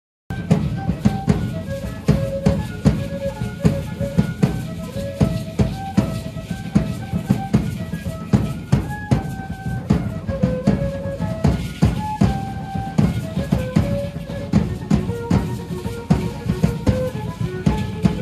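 Live danza de pluma music: a drum beating a fast, steady rhythm under a melody of stepping held notes. It cuts in suddenly just after the start.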